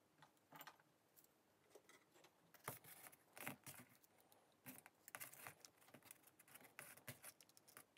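Faint clicks and rustles of hands handling test leads with alligator clips and a plastic drill trigger switch, in a few short irregular bursts.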